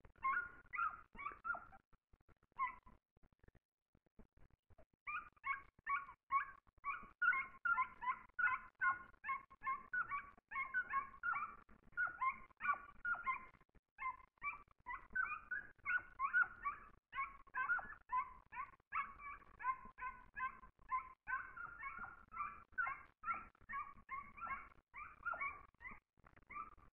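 Hunting hound baying on a hare's trail: short high yelping calls, a few in the first two seconds, then a near-unbroken run of about three a second from about five seconds in.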